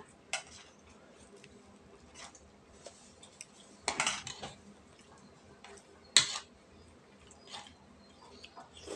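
Spoon and fork clinking on ceramic dinner plates during a meal: a few scattered sharp clinks, with a small cluster about four seconds in and the loudest clink about six seconds in.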